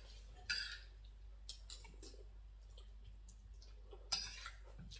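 Spoons and forks clicking and scraping on dinner plates during a meal: a few scattered, short clinks, the clearest about half a second in and again around four seconds in.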